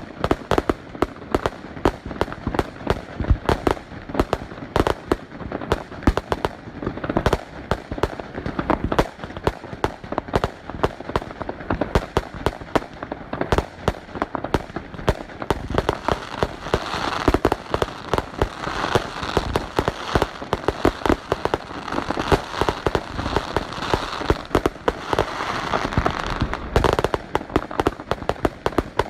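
Fireworks going off in rapid succession: a dense, continuous run of sharp bangs and pops, with the crackling growing thicker through the second half.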